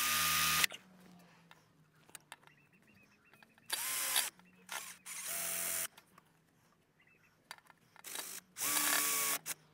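Handheld power drill boring into the plastic body of a seized ABS wheel speed sensor in the hub knuckle, run in four short bursts of under a second each, its motor whine climbing to speed at each start. The bit is meeting hard metal inside the sensor.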